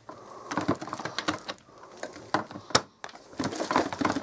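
Plastic body of a Eureka Powerspeed upright vacuum being handled: a run of irregular clicks and knocks, with a sharp click near three seconds in.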